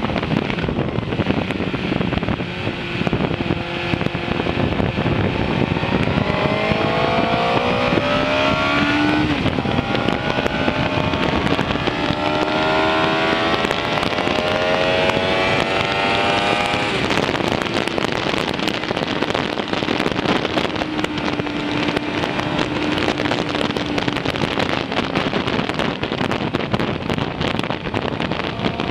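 Suzuki GSX-R 600's inline-four engine under way, its note climbing in pitch as the bike accelerates, dropping once and climbing again, then settling lower in the second half, over steady wind rush on the microphone.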